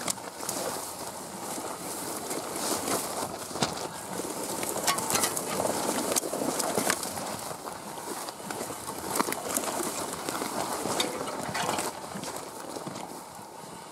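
Brush and tall grass swishing and scraping against a loaded pack wheel game cart's panniers and frame as it is pushed through the vegetation, with irregular clicks and knocks from the cart and footsteps.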